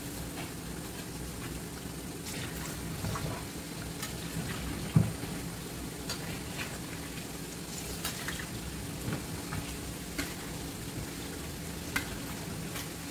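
Chicken fat and skin sizzling as they fry down into chicken oil in a stainless steel frying pan, the water still cooking out of them. A spatula stirs and scrapes through the pan with light clicking taps, and there is one loud thump about 5 seconds in.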